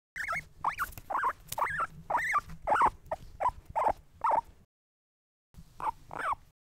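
Guinea pig squeaking: a quick run of about nine short squeaks, each rising and falling in pitch, then a pause and two more squeaks.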